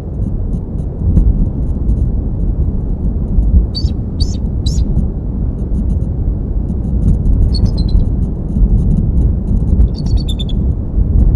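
Bald eagle giving short high-pitched chittering calls, a few sharp notes about four seconds in, then falling chitters around eight and ten seconds. Under them a loud, steady low rumble.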